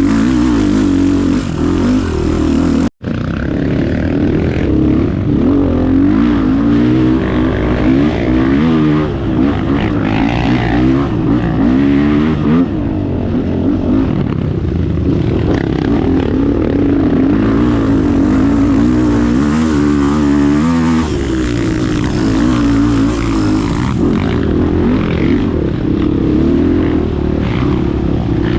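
Trail motorcycle engine running and revving up and down as it is ridden, with a brief cut about three seconds in.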